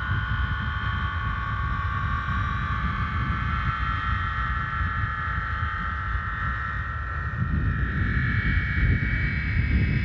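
Homemade aeolian harp, fishing-line strings on a plastic water pipe, sounding in the wind: several high held tones drifting together, with higher tones swelling in near the end. Wind rumbles on the microphone underneath.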